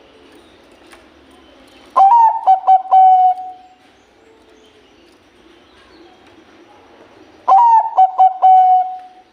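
Bangkok-bred zebra dove (perkutut) cooing twice, each time a short rhythmic run of quick coos ending in a longer held note.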